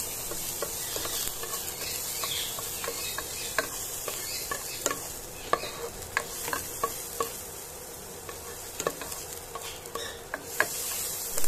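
Diced garlic, onion and ginger sizzling in hot oil in a nonstick pot as they are sautéed, a steady high hiss. A spatula stirs them, making scattered light scrapes and taps on the pan bottom.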